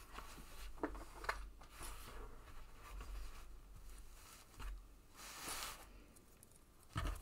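Soft handling of a cotton patchwork panel on a cutting mat: a few faint clicks of plastic sewing clips being put on, a short fabric rustle, and a low thump near the end.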